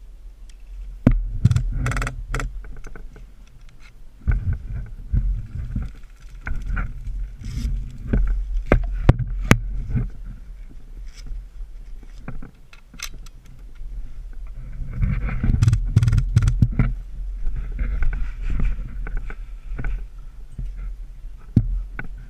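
Rustling and thumping movement noise close to the microphone, with a low rumble that comes and goes and many scattered sharp clicks and knocks.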